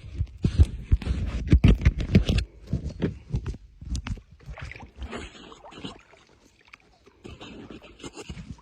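Knocks, thumps and scraping against a kayak, dense and heavy for the first two seconds or so, then sparser and quieter.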